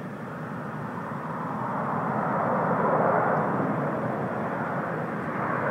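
Distant jet engine noise of an F-15E Strike Eagle on approach to land, a steady rushing that swells to a peak about three seconds in and then eases slightly.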